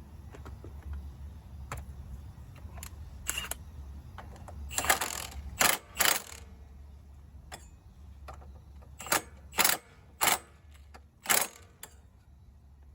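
Metal engine parts and hand tools clicking and clattering as a small engine's cooling fan and shield are put back on. Scattered light clicks, with a run of louder, sharp clanks in the second half, over a steady low hum.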